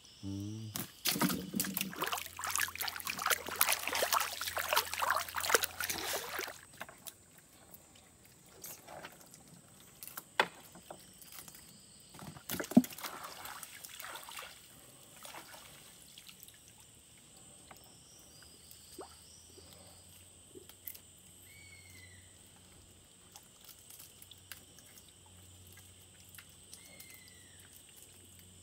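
Gill net being hauled out of the river over the side of a wooden boat, water pouring and splashing off the mesh for several seconds near the start and again around the middle, then only light dripping.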